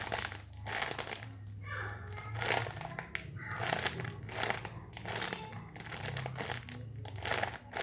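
Plastic packaging crinkling in irregular bursts as a squishy toy is handled, over a steady low hum.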